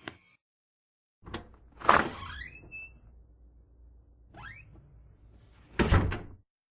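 Cartoon sound effects played one after another with silence between them: a loud mechanical whoosh with a rising whine about two seconds in, a shorter rising whine past the middle, and a loud sharp burst near the end.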